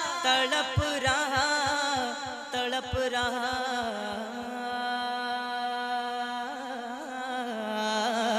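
A male naat reciter singing a long wordless, wavering melismatic passage into a microphone, over a fast, even low beat that drops away about four seconds in, after which the voice holds a long steady note.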